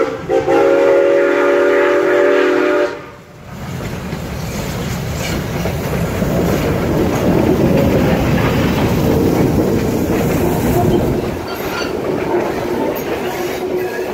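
A steam locomotive's chime whistle sounds a chord of several notes for about three seconds and cuts off. Then a train runs by, its rumble building, holding, and easing off near the end.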